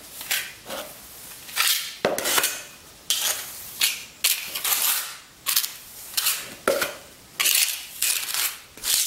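Small steel trowel scraping and spreading cement patching mortar over a pitted concrete floor: a series of short scraping strokes, roughly one or two a second, each starting with a sharp click.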